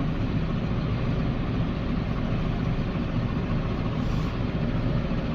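Tractor engine running steadily, heard from the cab while driving across a field spreading muck.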